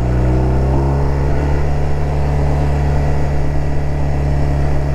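BMW R 1250 RT's boxer-twin engine running under way, its note rising over about the first second as the bike accelerates, then holding steady, with wind and road noise.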